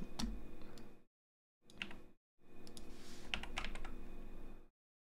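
Computer keyboard keystrokes: a few scattered key clicks, then a quick cluster of several near the middle, including a Command-S save shortcut, over a faint steady hum. The sound cuts out to dead silence twice between them.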